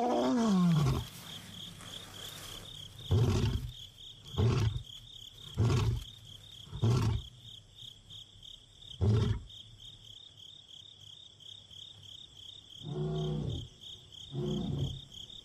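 Male lion roaring: a long moaning call that falls in pitch, then a run of short, loud grunts about a second apart, ending with two quieter grunts. A steady high insect trill runs underneath.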